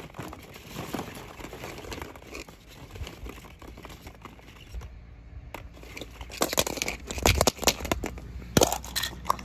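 Hollow plastic ball-pit balls clattering and rustling against each other as a hand digs through them. Sharper, louder plastic clacks come in the last few seconds as a plastic toy egg is handled.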